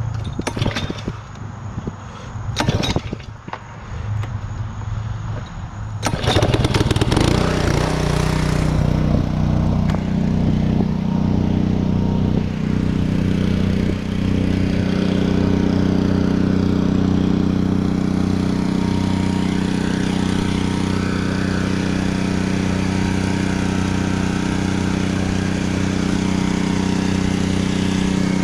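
Petrol-engine pressure washer running. About six seconds in there is a burst of spray hiss, and the engine settles into a louder, steady run under load.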